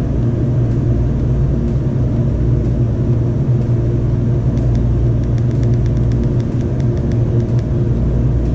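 A steady, unchanging low machine hum, like a motor or engine running at constant speed. Faint irregular clicks run over it, more often in the second half, as the bike computer's buttons are pressed.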